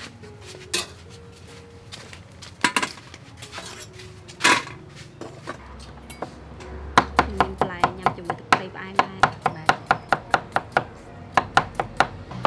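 A kitchen knife chopping cucumber on a round wooden chopping board, a fast even run of strokes about four a second starting about seven seconds in. A few scattered knocks come before it.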